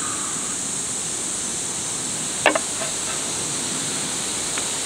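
An aluminium drink can set down on a table with one sharp clink about halfway through, followed by a couple of faint ticks, over a steady high hiss.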